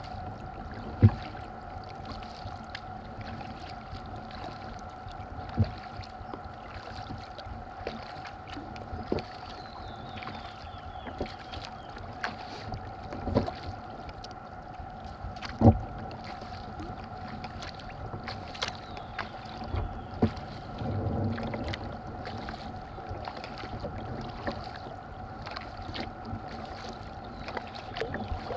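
Sea kayak being paddled on calm water: paddle blades dipping and dripping, with a few sharp knocks, the loudest about a second in and again near the middle, over a steady hum.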